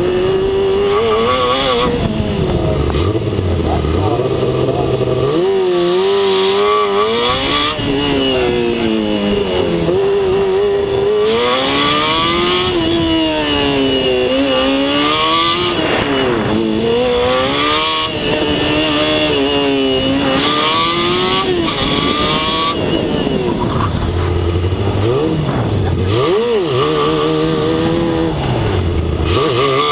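Formula SAE race car's engine heard from on board, revving up and dropping back over and over as the car accelerates and brakes between the cones of an autocross course.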